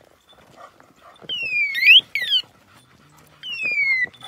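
A poisoned dog in its death throes giving high-pitched falling cries. There are three cries, each under a second long, and a short rising one overlaps the end of the first.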